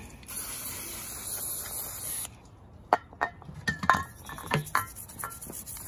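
Aerosol electrical contact cleaner spraying onto a circuit board in one hissing burst of about two seconds, followed by scattered clicks and short scrapes as a toothbrush works over the board.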